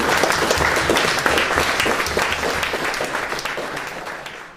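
A small crowd applauding by hand, the clapping dying away toward the end.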